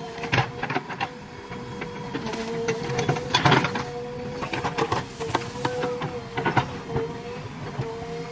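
JCB 3DX backhoe loader working, its engine and hydraulics giving a steady whine, with scattered knocks from the digging.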